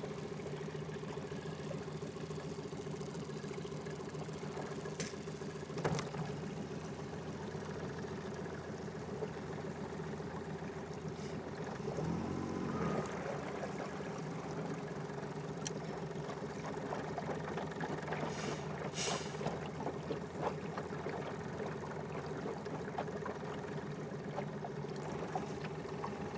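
Small boat's outboard motor running steadily at slow trolling speed, an even engine hum, with a single knock about six seconds in.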